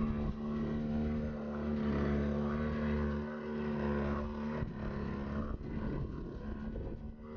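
Small motor of a DIY micro motor boat running steadily under way, a steady engine drone with a brief dip about two-thirds of the way through.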